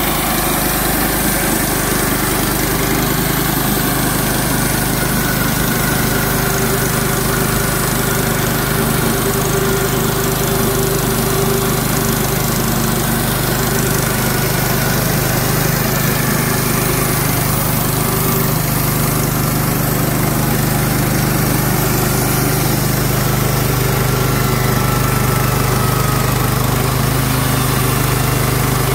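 Small gasoline engine of a Clarke portable bandsaw mill running steadily under load while its band blade saws lengthwise through a white pine log.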